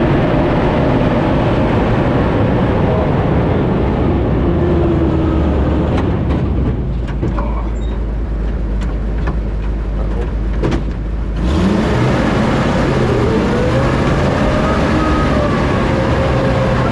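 1941 Universal Carrier's Ford flathead V8 engine and tracks running on the move, heard from the open crew compartment. About six seconds in, the noise eases to a steady low hum for some five seconds. The full racket then cuts back in abruptly, with the engine pitch rising as it accelerates.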